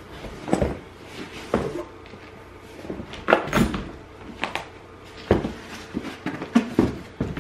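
Packaging being handled while a box is unpacked: irregular knocks, clunks and rustles, with the busiest cluster about three to four seconds in.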